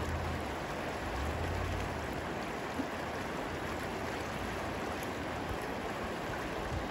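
River water rushing steadily over a shallow, rocky riffle.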